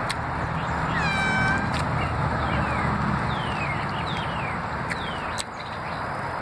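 An animal's drawn-out mewing call about a second in, followed by several short, high, falling chirps, over a steady background hiss and low hum.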